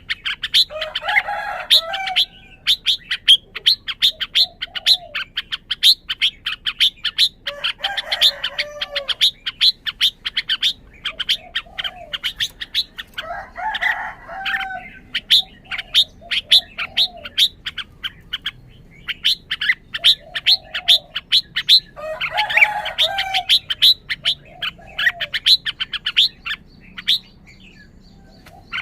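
Red-whiskered bulbul singing four short warbling phrases several seconds apart, over a continuous fast run of sharp, high ticking chirps.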